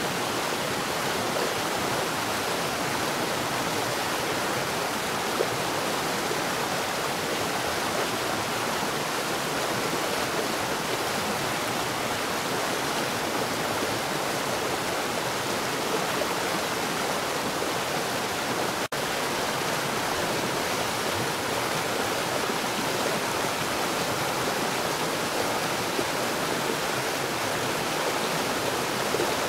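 Water falling at a rapid rate underground, a steady rushing noise with no let-up. It cuts out for a split second about two-thirds of the way through.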